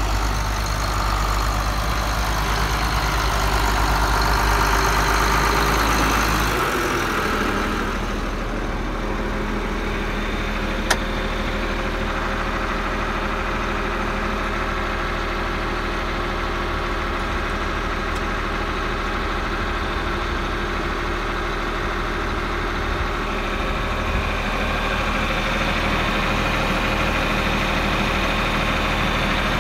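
John Deere 4450 tractor's six-cylinder diesel engine running, louder for the first six or so seconds, then settling to a steady idle. A single sharp click about eleven seconds in.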